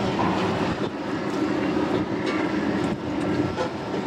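Ship's diesel engines running with a steady low drone.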